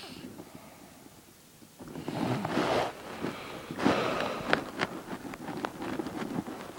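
A sleeping woman snoring: one harsh snore about two seconds in, then a longer rattling snore broken by a run of clicks.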